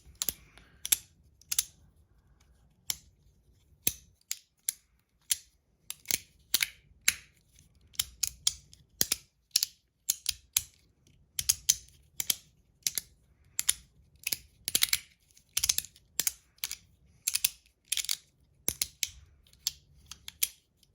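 Flat Verk slider fidget being slid back and forth, its plates snapping into place with sharp clicks. The clicks come irregularly, about two to three a second, often in close pairs.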